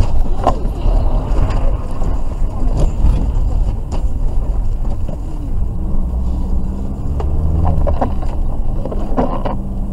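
Cabin drone of a vehicle driving on a wet road: steady engine and tyre rumble, with several short knocks and clicks scattered through, and a steady engine hum coming in about halfway through.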